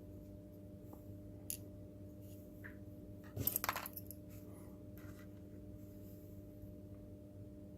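A single light click, then about three and a half seconds in a brief clatter of small hard parts knocking together as they are handled, over a steady low electrical hum.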